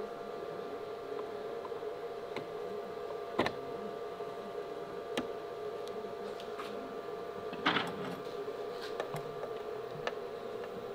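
Light metal clicks and knocks as the aluminium side plate of a Penn International 80 reel is fitted onto the frame and screwed down, the sharpest about a third of the way in and a double knock a little after two thirds, over a steady hum.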